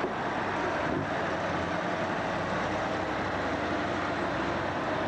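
Massey Ferguson 2805's V8 diesel engine running hard and steady under load as the tractor pulls the weight sled.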